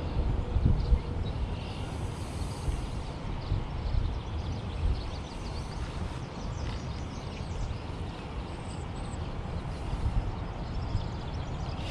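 Outdoor ambience: a steady low rumble.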